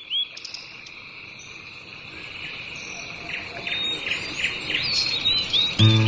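Insects trilling steadily, with a bird chirping in a quick run of repeated notes at the start and again near the end, and other short bird calls in between.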